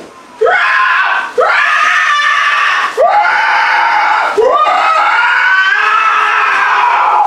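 A man's voice screaming loudly: four long screams back to back, each sweeping up in pitch at the start and then held, the last lasting nearly three seconds.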